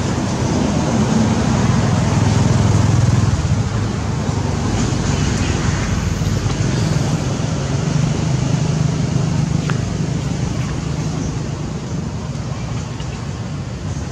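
Steady low rumble of a running engine, like a nearby motor vehicle, swelling slightly about two seconds in and easing a little near the end.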